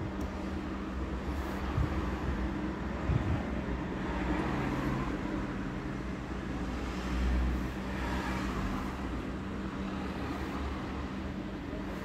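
Steady low hum and street traffic noise heard from inside a parked car with its engine off. Two soft knocks come about two and three seconds in, and a vehicle passes with a swell of rumble about seven seconds in.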